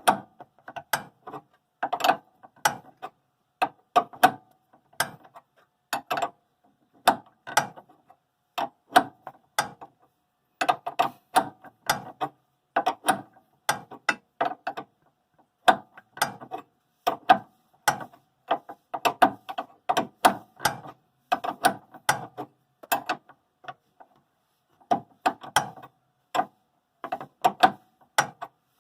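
Ratchet wrench clicking in short groups of quick strokes with brief pauses between them, working a stubborn stabilizer link nut loose.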